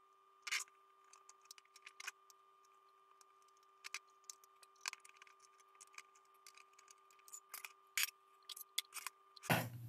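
Scattered light clicks and taps of a mini amplifier's case being taken apart by hand: an Allen key working the case screws, screws set down on the desk, and the circuit board handled out of the metal case.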